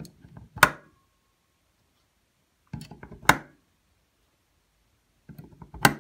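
Three Powerex Pro AA NiMH batteries pushed one after another into the slots of a Powerex MH-C9000PRO charger, about every two and a half seconds: each a brief scrape followed by a sharp click as the battery snaps into its slot.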